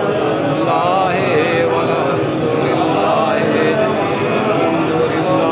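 A man chanting an Islamic devotional recitation in a drawn-out, wavering melody.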